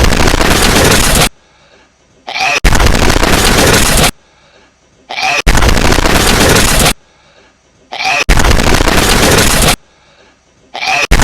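A hedgehog's sneeze played on a loop: a brief high squeak, then a very loud, harsh burst of noise about a second and a half long. It repeats about every three seconds, four times over, with a fifth starting at the very end.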